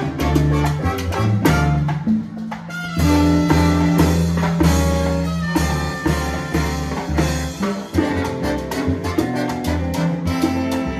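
Live salsa band playing an instrumental passage: trombones and trumpets playing held notes over congas, timbales, bongos and bass.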